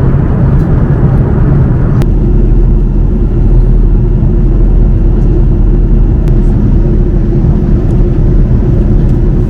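Steady cabin noise inside an Airbus A330-300 airliner on its approach to landing, a loud low rumble from the engines and airflow. About two seconds in there is a short click, and a steady hum sets in alongside the rumble.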